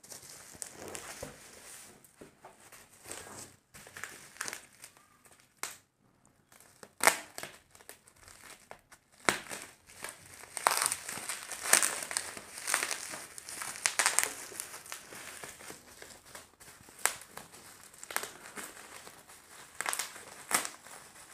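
Bubble wrap being cut and pulled off a cardboard box: irregular plastic crinkling and rustling, with scattered sharp crackles.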